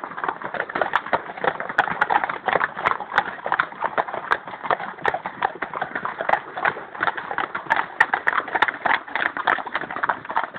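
Hooves of a group of ridden horses going past on a dirt track: a dense run of many overlapping hoofbeats.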